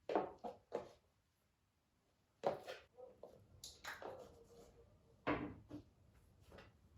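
High-heeled shoes striking a hard floor in sharp, uneven clicks, with a pause of over a second after the first few steps.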